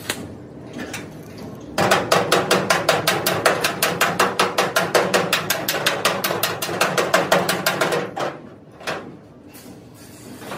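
A hand hammer striking the steel frame of an excavator cabin in a fast, even run of metal-on-metal blows, about seven a second for about six seconds, then a few single knocks.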